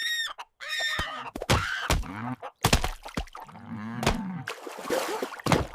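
Cartoon sound effects: short squawking chicken calls, several knocks and thuds, and a low groaning call in the middle.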